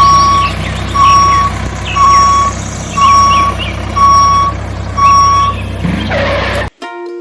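Vehicle reversing alarm beeping about once a second over a steady engine drone, with small chirps between the beeps. It all cuts off suddenly near the end.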